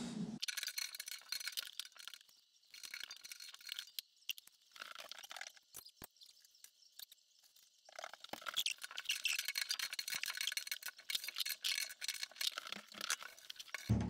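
Faint scratching and light clicks of hands working on a leaking radiator valve's compression joint at its pipe connection, cutting to dead silence several times.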